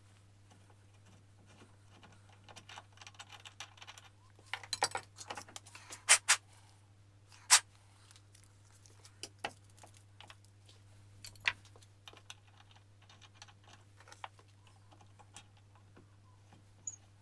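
Scattered small metallic clicks and knocks as hand tools and a small aluminium workpiece are handled at a machine vise, with a few sharp clicks, the loudest, between about six and seven and a half seconds in. A steady low hum runs underneath.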